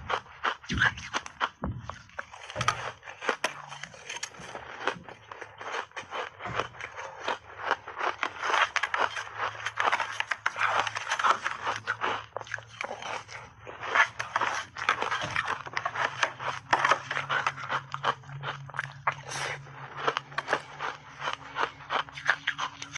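Big bites of frozen purple ice chunks coated in milk powder being crunched and chewed close to a clip-on microphone: many sharp, rapid cracks and crunches, one after another.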